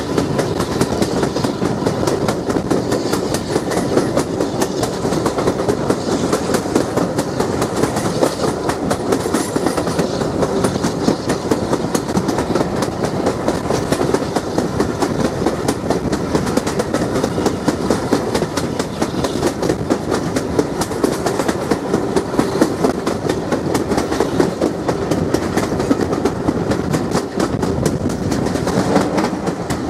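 Steam-hauled heritage train running at speed, heard from an open carriage window: a steady rush of wind and rolling noise, with wheels clicking over rail joints.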